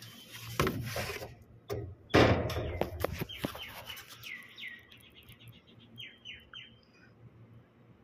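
A trigger spray bottle sprays soapy leak-detection solution onto a refrigerant pipe joint in two bursts, about half a second and about two seconds in, as the pressurised circuit is checked for a leak. From about three seconds in, a bird chirps repeatedly in short falling chirps.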